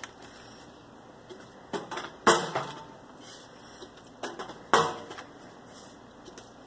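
Plastic water bottle being flipped and knocking down onto a metal grill: two sharp knocks about two and a half seconds apart, with a few lighter taps.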